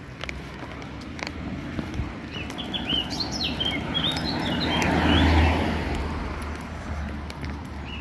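A car passing on the street, its tyre and engine noise swelling to a peak about five seconds in and then fading. Small birds chirp in a quick cluster of short high notes just before it.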